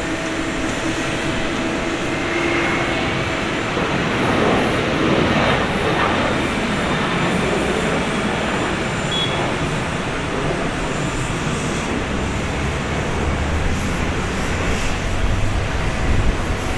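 Boeing 737-800's CFM56-7B turbofan engines at takeoff thrust as the jet lifts off and climbs away: a steady loud jet roar with a whine over it in the first few seconds. The roar peaks about five seconds in with a sweeping hollow tone, then turns to a deeper rumble near the end.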